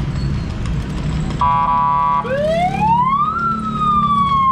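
Vehicle siren sounding over a low traffic rumble: a short steady horn-like tone, then a wail that rises for about a second and slowly falls.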